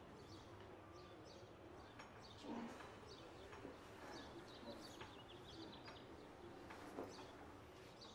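Near silence: faint room ambience with scattered small bird chirps and a few soft ticks.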